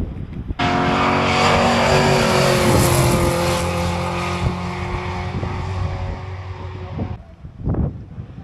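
A classic car's engine racing past along a hillclimb course, its pitch falling slowly as it goes by. The sound starts abruptly about half a second in and cuts off suddenly near the end.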